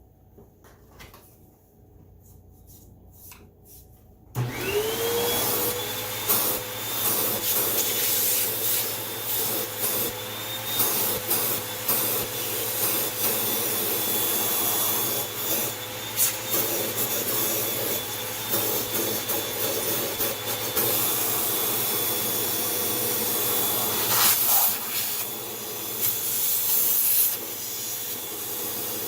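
A vacuum cleaner motor switching on about four seconds in, spinning up with a quick rising whine and then running steadily with a high whine over loud airflow hiss, with uneven rubbing and scraping as it works over a surface.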